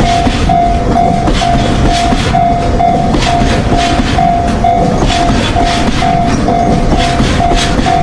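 A train running: a steady, loud rumble with scattered clattering clicks, and one tone that pulses on and off about twice a second throughout.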